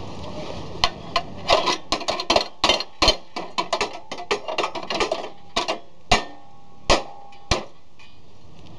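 Metal tool striking the rear axle and axle bolt of a moped: a run of sharp, irregular metallic knocks, a few ringing briefly, stopping near the end. The axle is being knocked loose because it won't unscrew.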